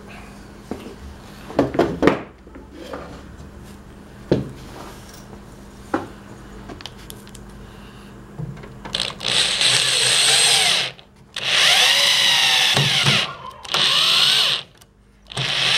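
A few knocks of wood being handled, then a power drill running in four bursts of a second or two each, its whine bending up and down in pitch as it drives screws into the pallet-wood shelf.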